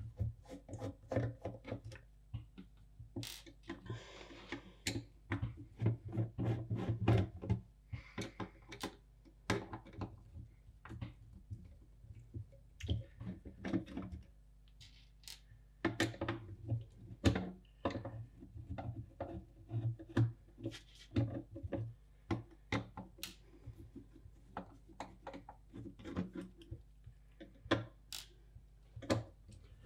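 Irregular clicks and knocks of small screws being undone from the steel lid of a passive monitor controller and set down on the bench, with the metal case being handled.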